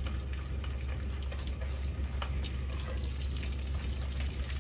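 Hot cooking oil in a deep pot sizzling and crackling as a floured piece of chicken goes into it, with a steady low hum underneath.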